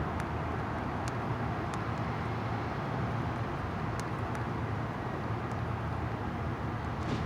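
Steady outdoor rumble of vehicle traffic, with a few faint light ticks scattered through it.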